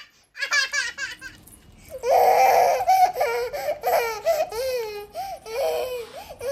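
A young child laughs hard in quick, high-pitched bursts while being tickled. From about two seconds in, high-pitched children's voices follow in long drawn-out calls.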